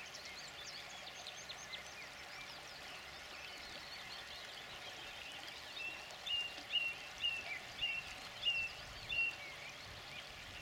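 Small birds singing and twittering, with a run of about eight short, evenly spaced piping notes in the second half, over the faint steady rush of a river.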